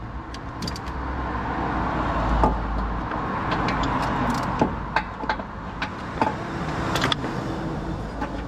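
Motor vehicle noise that swells over a few seconds and then eases, under a steady low rumble, with several sharp clicks and taps.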